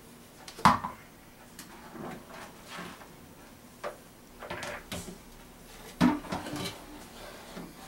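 Blender jar being lifted off its base and handled at a stainless steel sink: a sharp knock about a second in, then scattered clunks and bumps of the jar against the base and sink.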